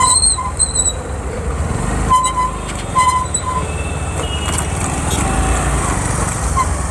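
Short vehicle horn beeps in traffic: a quick run of beeps at the start and another run about two to three seconds in, over the steady low rumble of a motorcycle riding on the road.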